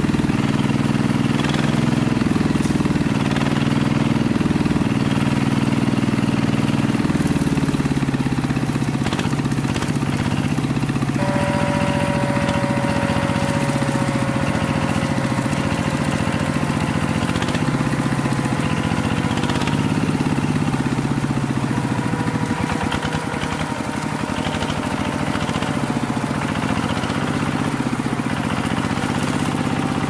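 Small motor of a homemade miniature rice thresher running steadily, turning the threshing drum through a rubber-band belt while rice stalks are fed in. A fainter whine comes in about a third of the way through and slowly drops in pitch.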